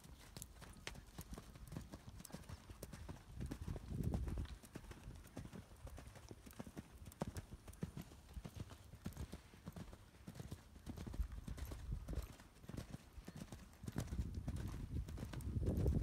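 Hoofbeats of a horse cantering on arena sand: a run of dull, muffled thuds, louder about four seconds in and again near the end as the horse comes closer.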